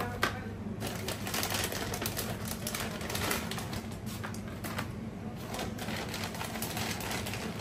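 Plastic drink bottles and their shrink-wrap being handled, a run of irregular clicks, knocks and crinkles, over a steady low hum.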